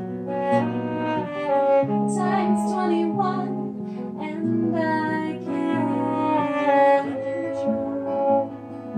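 A woman singing over an acoustic guitar, with a bowed cello holding long low notes beneath. Pitch lines bend and glide above the steady low notes.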